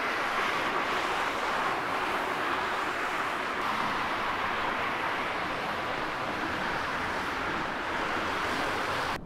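Steady, even roar of street traffic, cutting off abruptly at the very end.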